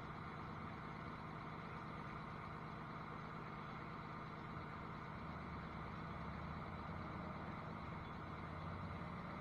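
Cummins ISL inline-six diesel engine running steadily at the raised idle of a parked DPF regeneration, heard from inside the truck's cab.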